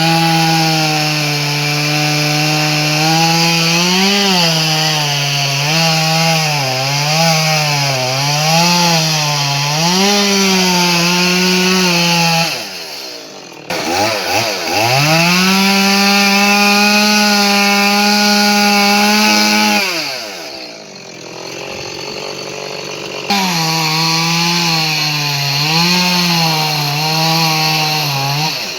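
Chainsaw cutting through a large tree, its engine note dipping and recovering as the chain bites into the wood. The revs fall away briefly twice, and in between the saw runs at a steady, high pitch.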